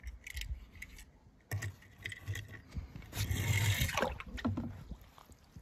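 A few clicks and a knock as a small die-cast toy car is handled, then a splash about three seconds in as the car drops into a tub of water, with some bubbling after it.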